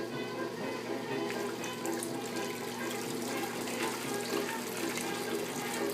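Water sloshing and splashing in the tub of a 1930s Wardway Standard wringer washing machine as it washes, with music playing over it.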